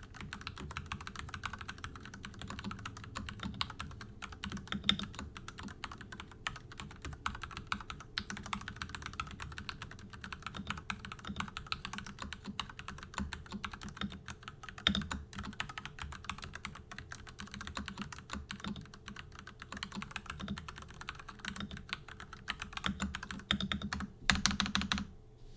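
Typing on a stock Ducky Zero 6108 mechanical keyboard with Cherry MX2A Red linear switches: fast, continuous keystrokes, with a quick rapid run of strokes near the end before the typing stops.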